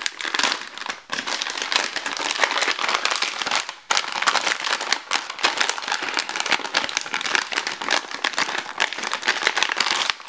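Clear plastic bag crinkling and rustling as it is handled and worked off a graphics card. The crinkling is dense and crackly, with short lulls about one second and about four seconds in.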